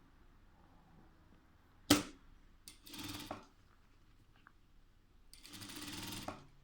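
Electric sewing machine: a sharp click about two seconds in, then two short bursts of stitching, the second lasting about a second near the end.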